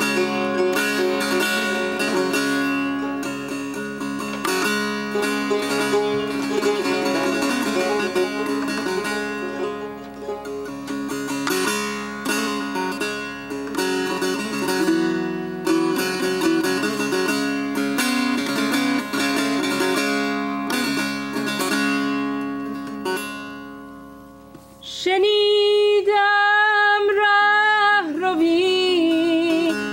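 Persian music: a plucked string instrument plays a run of quick notes, dies away just before 25 seconds, and then a voice comes in with long sung notes that waver in pitch.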